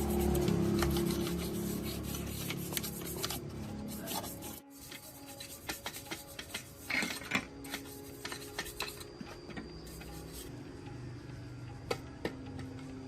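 Hand-tool rubbing and scraping on a part, like filing or sanding, in irregular strokes with scattered clicks. Soft music runs underneath, and the sound cuts abruptly about a third of the way in.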